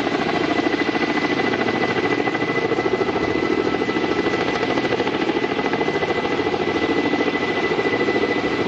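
Helicopter rotor beating fast and evenly close by, with the turbine's whine underneath.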